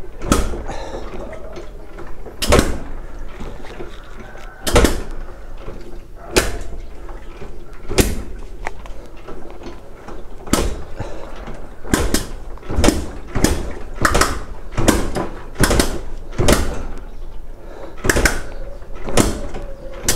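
A motorcycle's kick-starter being stamped over and over, cranking the engine with the spark plug removed. Each stroke is a sharp clunk: about every two seconds at first, then quickening to under a second apart about halfway through. The cranking pumps the soaked carbon cleaner and loosened carbon out of the combustion chamber through the plug hole.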